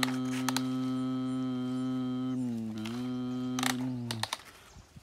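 A child hums a long, steady 'nnn' drone in imitation of a digger's engine. The drone dips in pitch about halfway through and breaks off for a breath near the end. A few light clicks and scrapes of plastic toys and gravel come through under it.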